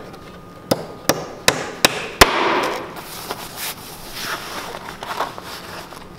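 Hammer tapping a tongue of an OSB building-form panel into its slot: five quick strikes about half a second apart, the last the loudest, followed by a brief scraping rustle.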